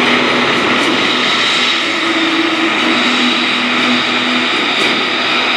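Beechcraft Twin Beech 18 climbing in an aerobatic pull-up, its two radial engines and propellers giving a loud, steady drone.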